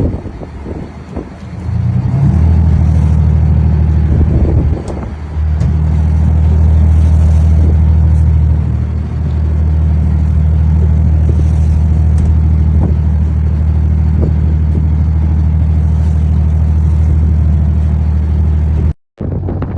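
Boat engine running with a steady low drone, the level dipping briefly about a second in and again around five seconds; the sound cuts out for a moment near the end.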